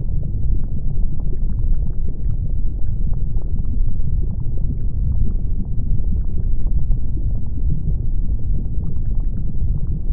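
Lava sound: a steady deep rumble with many small crackles and pops scattered through it.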